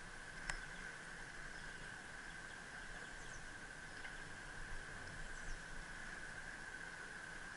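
A steady high-pitched whine over a low muffled rumble of a bicycle rolling on paving. There is a sharp click about half a second in and a few faint ticks later.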